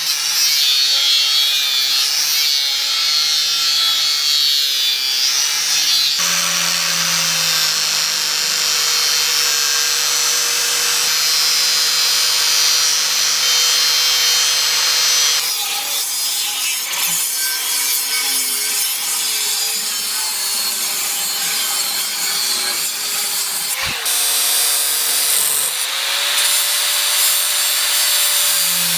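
A power tool works wood or steel with a steady rasping, sawing noise under a motor whine that wavers in pitch as it loads. The sound changes abruptly several times.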